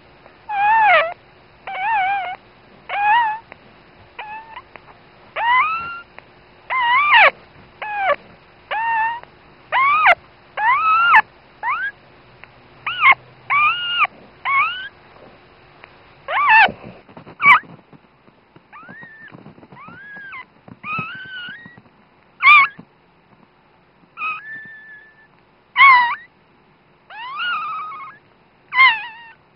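Newborn dachshund puppy squeaking and crying: a long run of short, high-pitched cries about one a second, some rising and some falling in pitch. In the second half they come more irregularly and unevenly.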